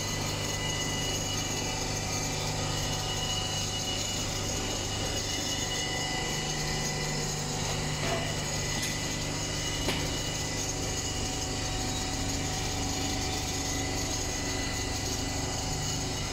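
Computerized single-head quilting machine stitching, its needle head and gantry drive running steadily, with two small clicks about halfway through.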